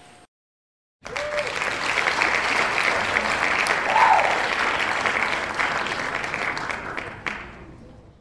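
Crowd applause, coming in suddenly about a second in and fading out near the end.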